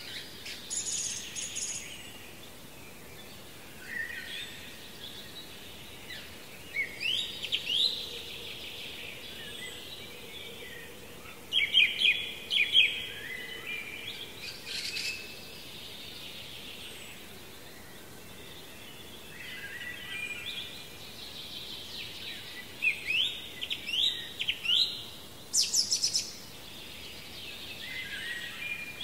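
Wild songbirds singing in short phrases of quick, sharp notes, repeated every few seconds with pauses between. The loudest phrases come about twelve seconds in and again in a run a few seconds before the end, over a faint steady background hiss.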